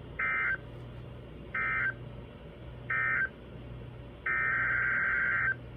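Emergency Alert System digital data bursts: three short identical warbling bursts about 1.4 seconds apart, the end-of-message code closing an alert. About four seconds in comes a longer burst, the header of the next alert. A low steady hum runs underneath.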